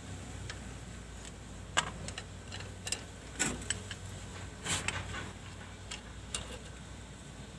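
Irregular sharp metallic clicks and clinks of hand tools being worked on an excavator engine, over a steady low hum.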